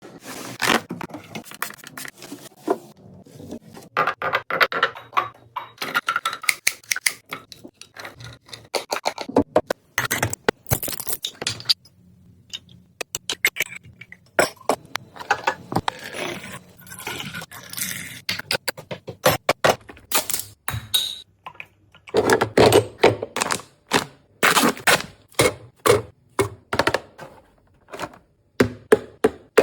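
Close-up handling sounds of restocking a mini fridge. Plastic containers and packaging tap, click, rustle and scrape as items are set in place, with many short knocks throughout.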